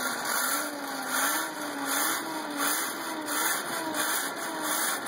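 Forge blower running to feed air to the fire, its hum rising and falling in a steady rhythm about one and a half times a second.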